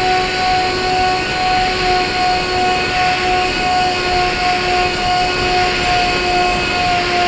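Steady whine of a model aircraft's motor and propeller, heard from a camera on board, over the rush of wind past the airframe; the pitch holds steady while the level swells and eases slightly about twice a second.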